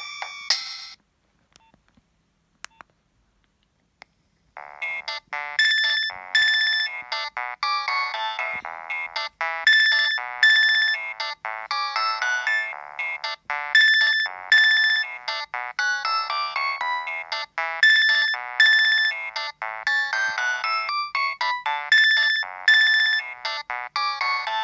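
Nokia 7250i mobile phone playing its preloaded ringtones through its own speaker. One tune cuts off within the first second. After a few seconds of near silence with faint clicks, a new fast melody of short, bright notes starts about four and a half seconds in and loops about every four seconds.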